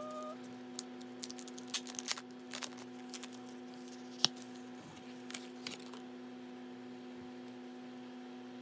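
A sealed photocard pack and a cardboard card holder being handled and opened: rustling and crinkling with sharp clicks and taps, the sharpest click about four seconds in, then quieter handling as the cards are slid out. A steady low hum runs underneath.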